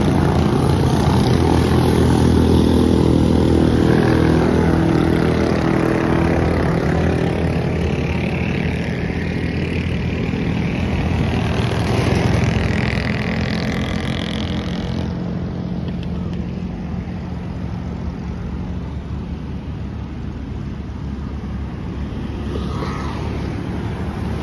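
Motorcycle traffic crossing a bridge, with small motorcycle engines and a motorcycle sidecar tricycle passing. The engine noise is loudest for about the first dozen seconds, with engines rising and falling in pitch as they pass. About fifteen seconds in it changes abruptly to a quieter, steady traffic hum.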